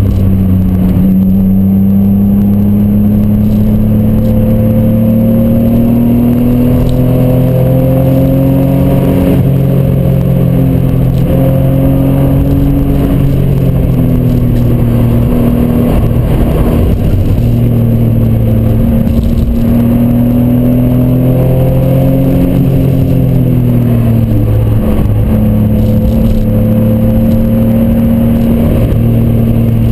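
Toyota Supra MK3's 3.0-litre straight-six (7M-GE) with an aftermarket Blitz Nur Spec R exhaust, heard from inside the cabin under hard driving. The engine note climbs and falls several times as the driver accelerates and lifts, over steady road and wind noise.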